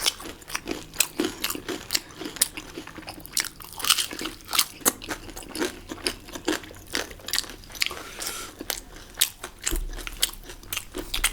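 Crunching and chewing of crispy fried kurkure momo close to the microphone: many sharp, irregular crunches one after another.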